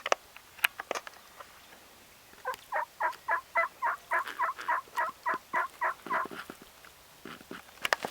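A long run of turkey yelps, about fourteen evenly spaced calls at roughly four a second, lasting nearly four seconds. A few sharp clicks come before it.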